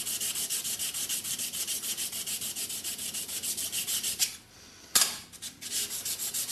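Steel card scraper rubbed flat back and forth on a diamond sharpening plate in quick, even strokes, about six a second: honing the flat face near the edge, a stage of sharpening a card scraper. The strokes pause briefly about four seconds in, and a sharp click is heard near five seconds before they resume.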